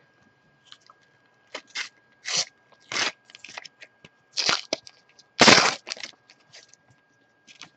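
A Panini sticker packet being torn open and its wrapper crinkled: a string of short crackling rustles, the loudest about five and a half seconds in.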